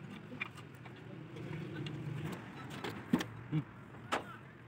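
A few sharp metallic clicks and knocks from hand work on a Massey Ferguson 135 tractor's gearbox housing, the loudest a little after three seconds and again just after four, over a faint steady low hum.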